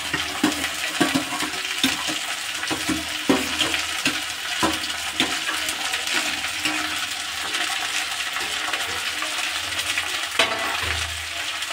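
Chopped okra sizzling in hot oil in a kadhai, with a few sharp clicks and scrapes in the first five seconds as a slotted metal spatula pushes the last pieces off a steel plate into the pan, and one more click about ten seconds in.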